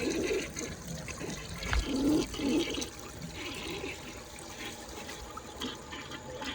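1968 Rockport toilet flushing, water rushing and gurgling down the bowl as it takes a rag, then settling to a quieter steady flow after about three seconds. A single sharp knock sounds about two seconds in.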